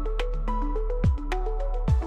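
Electronic background music: a plucked-sounding melody of short stepped notes over a steady low bass, with a deep kick drum about once a second.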